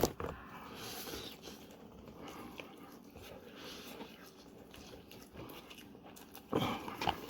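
Soft chewing of spicy instant noodles, close to the microphone, with a sharp click right at the start and a short breathy vocal sound near the end.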